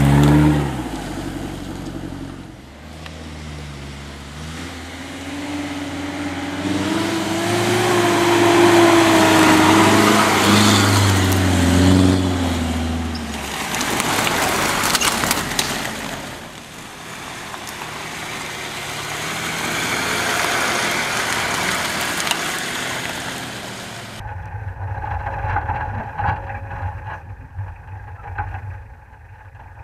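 Off-road 4x4 SUV engines revving up and down under load as they climb a muddy slope, with tyre and mud noise. About three quarters of the way through, the sound turns muffled, as heard from a camera mounted on the vehicle.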